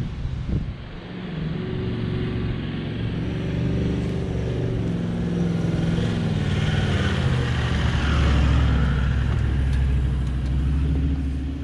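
Toyota LandCruiser 79 series V8 turbo-diesel engine pulling a caravan up a soft sand track. It runs under load with the pitch shifting, and grows louder to a deep rumble near the end as it comes close.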